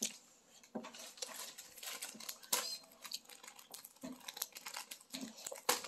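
Packaging crinkling and rustling as it is handled, with scattered small clicks and taps and a sharper knock about halfway through and another near the end.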